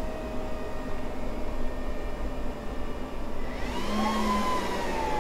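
Apple Xserve G5 powering up: its cooling fans run with a steady rushing whir and a whine. About three and a half seconds in, a second, higher fan whine rises quickly and then slowly sinks in pitch as the fans spin up at start-up.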